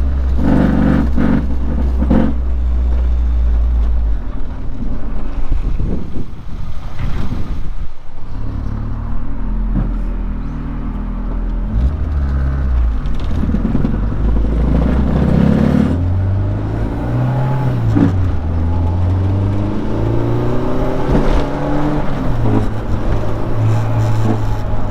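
Honda del Sol with a B20 four-cylinder engine driving, the engine pitch rising and falling with acceleration and gear changes over road noise.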